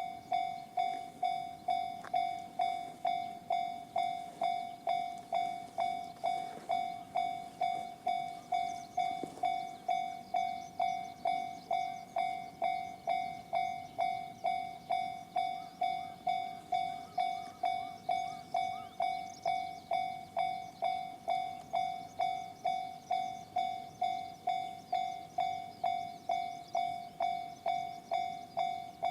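Japanese railway level-crossing alarm sounding the JR standard electronic bell tone: an evenly repeated ding, about two strikes a second, each dying away quickly.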